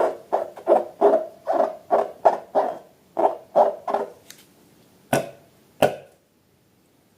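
Balloons and slime being squeezed and worked by hand: short squishy squeaks, about three a second, stop about four seconds in. Two sharp clicks follow, about 5 and 6 seconds in.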